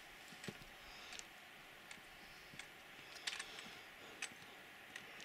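Faint, irregular sharp clicks and taps, about a dozen spread unevenly with a small cluster a little past the middle, over a quiet background hiss.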